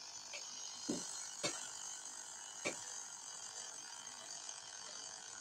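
Faint handling noise from a smartphone held in the hand: three short clicks, about a second in, half a second later and near the three-second mark, over a low steady hiss.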